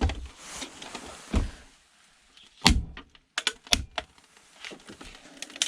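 Plastic and metal clicks and knocks of an old CRT computer monitor's casing and parts being handled and worked apart by hand. They are irregular, the loudest about two and a half seconds in, followed by a quick cluster of clicks about a second later.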